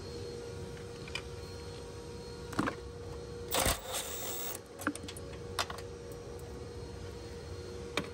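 Scattered clicks and knocks of hand tools and metal parts being worked on, the loudest a short clatter a little past three and a half seconds in, over a steady faint hum.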